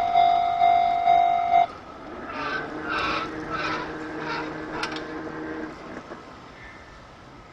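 Japanese level-crossing warning bell ringing about two strokes a second, then cutting off suddenly: the train has cleared and the alarm stops. After it comes a quieter hum with a few short hissing bursts for about three seconds, fading.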